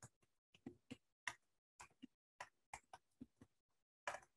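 Faint, irregular clicking of computer keys, two or three clicks a second, with a louder cluster of clicks about four seconds in.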